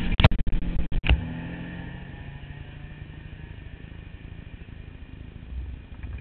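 Trike engines idling with a low rumble, and several sharp knocks in the first second. A pitched engine hum fades out about two seconds in, and the rumble swells slightly near the end.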